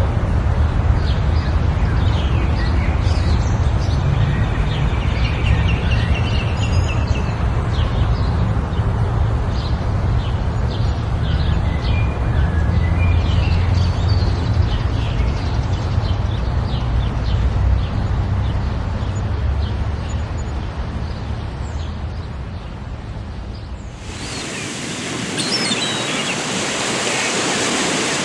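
Birds chirping, with many short calls over a steady rushing background noise. About 24 s in, the sound cuts abruptly to a brighter, hissing background with a few high chirps.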